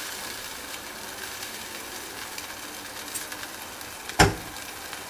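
Sauce sizzling steadily in a saucepan while being stirred with a spatula, with one sharp knock about four seconds in.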